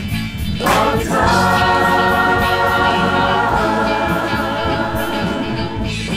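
Music with a choir singing: after a few sharp hits, the voices hold one long chord from about a second in until near the end.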